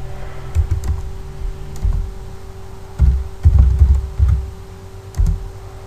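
Computer keyboard being typed on in short, irregular runs of keystrokes, with some dull low thuds, the heaviest a little after three seconds in. A steady faint electrical hum runs underneath.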